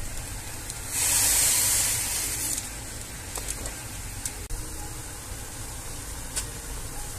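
Saucepan of water at a rolling boil, with a loud hiss about a second in that lasts about a second and a half as seasoning from a packet is poured into it, and a few faint clicks later.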